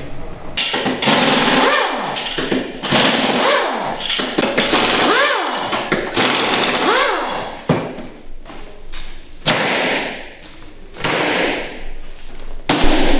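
Hose-fed pneumatic air tool worked against a resin-crusted bathtub mold, running in several loud bursts whose pitch rises and falls, with short pauses between runs.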